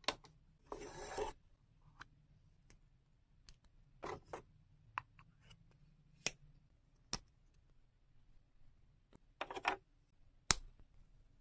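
Small hard plastic toy pieces being handled, with scattered sharp clicks and taps. A few short scraping rubs come from a tiny plastic spoon working through lip gloss in a small plastic cup.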